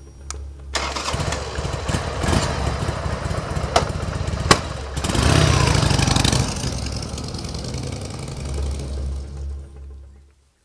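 Motorcycle engine starting about a second in, then running, with two sharp clicks. It revs up as the bike pulls away and fades into the distance near the end.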